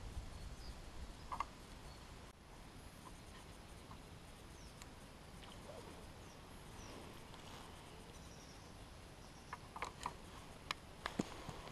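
Faint outdoor quiet with light rustling, then a cluster of small sharp clicks and taps about ten seconds in as a float rod and a freshly caught small fish are handled.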